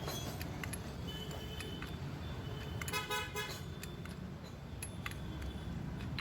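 Royal Enfield 350 engine running with the clutch cover off, with a light rattle from the starter clutch gear knocking against the front chain sprocket, which the owner blames on a failed gear bearing. A vehicle horn honks briefly about three seconds in.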